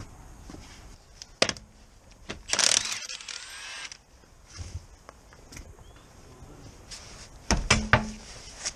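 Scattered clicks and knocks of wheel nuts and tools being handled at a car wheel, with a short noisy burst about a third of the way in. Heavy thumps near the end as the road wheel is lifted off the hub.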